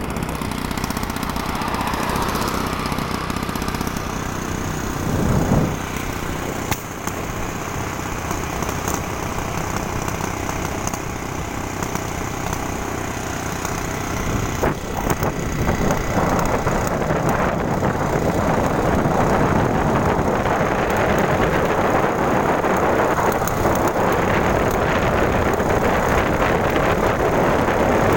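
Steady engine noise, like a small motor or motor vehicle running, getting louder about halfway through.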